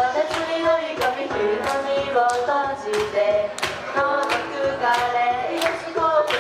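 Female idol group singing a pop song into microphones over a recorded backing track with a steady beat of about two strikes a second.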